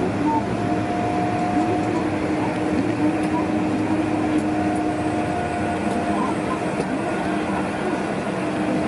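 Airport ramp bus running, heard from inside the cabin: a steady drone with a held humming tone and a fainter, higher whine that comes and goes.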